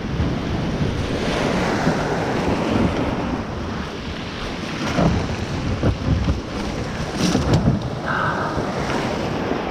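Small waves breaking and washing up a pebble beach, with gusts of wind buffeting the microphone.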